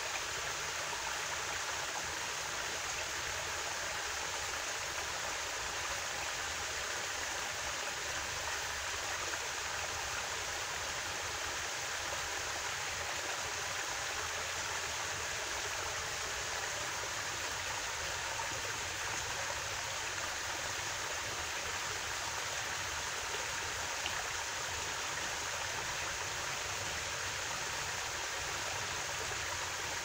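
Small forest stream flowing, a steady rush of running water with no change.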